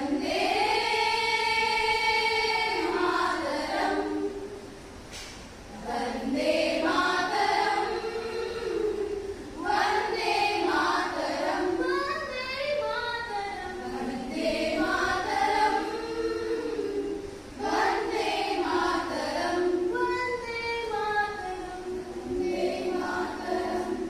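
Group of women singing a patriotic song together as a choir, in long held phrases with short breaks between them.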